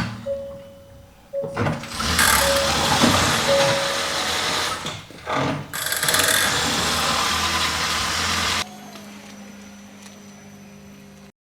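2018 Hyundai Ioniq Hybrid being moved slowly, in two loud runs of rolling, mechanical noise with a short pause between them. The car clicks when pulling away forward or in reverse, which the mechanic puts down to a worn CV joint.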